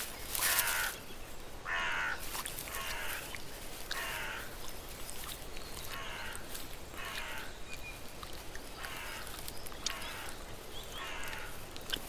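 Lynx feeding on prey: a harsh, rasping chewing and licking sound repeating about once a second, with small clicks between.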